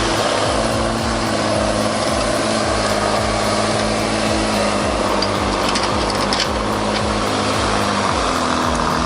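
An engine running steadily, with a few sharp clicks around the middle.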